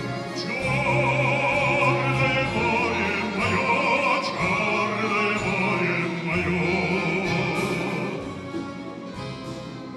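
Russian folk-instrument orchestra playing a slow song, full and steady, then growing quieter near the end.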